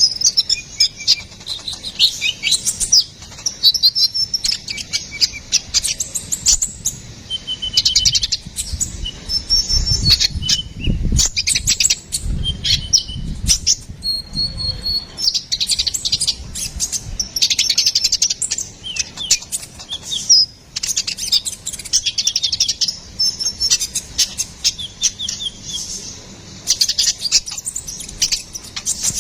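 A konin, the small sunbird known in Indonesia as kolibri ninja, singing busily and without pause, with rapid high chirps and quick trills.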